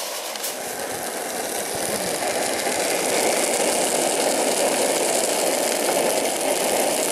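Small camping stove burner running with a steady rushing noise, swelling slightly over the first few seconds.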